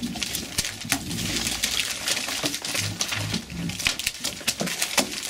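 Paper and sticky notes rustling and being torn: a busy stream of quick crinkles and rips as pads of notes are pulled apart and flung about.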